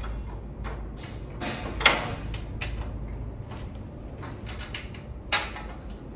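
Irregular clicks and light knocks of screws, a small hand tool and chair parts being handled while an Adirondack chair's backrest is screwed on, with two sharper clicks about two seconds in and near the end.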